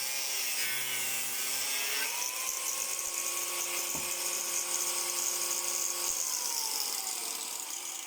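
Electric grinder motor running as it cuts frozen chicken polony, with a gritty hiss over the motor hum. About two seconds in its whine rises to a higher steady pitch, and near the end it winds down.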